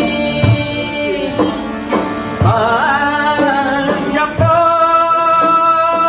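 Pamiri folk music played live on a long-necked lute, an accordion and a frame drum, the drum beating about once a second. A man's voice comes in about two and a half seconds in with a wavering line, then holds long notes.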